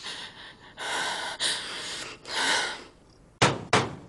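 A woman's heavy, tearful breaths, three in a row, then near the end two sharp hammer blows on a door lock.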